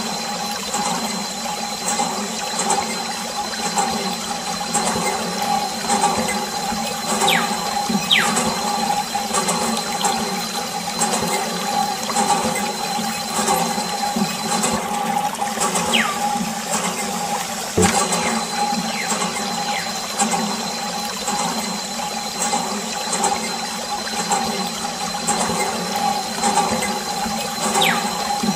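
A thin jet of water from a small homemade DC-motor water pump splashing steadily onto plastic toy trucks, over the steady whine of the little pump motor.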